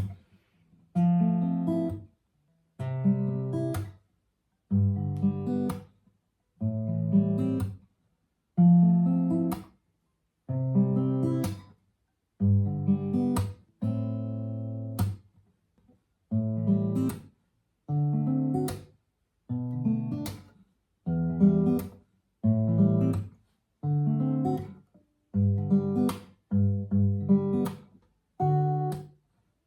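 Background music of acoustic guitar: strummed chords, each starting sharply and cut off after about a second, one roughly every two seconds.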